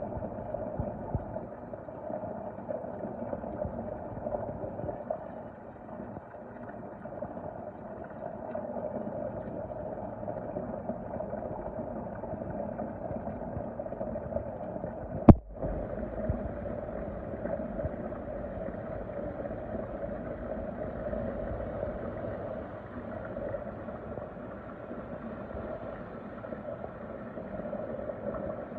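Steady, muffled churning and hum of circulating water in a closed water system, heard from underwater, with one sharp click about fifteen seconds in.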